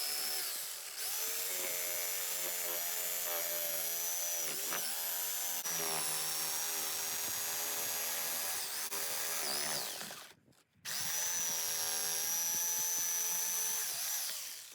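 Electric jigsaw running steadily while cutting out a disc, its pitch dipping briefly now and then under load. It stops for about a second around ten seconds in, starts again and stops near the end.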